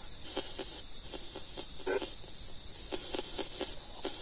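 Spirit box radio sweep: choppy static pulses about five a second over a steady hiss as the device scans through stations, with a brief voice-like fragment about two seconds in.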